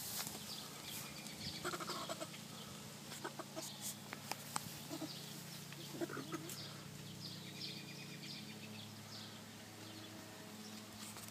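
Chickens clucking and calling in short bursts over a steady low hum, with a few scattered clicks.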